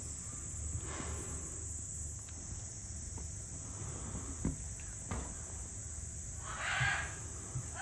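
Steady, high-pitched insect chirring, like crickets, with a few faint knocks and a short rough burst of sound about a second before the end.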